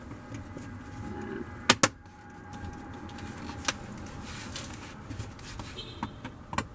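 Plastic car door trim being handled, with two sharp clicks in quick succession a couple of seconds in and a lighter click a few seconds in.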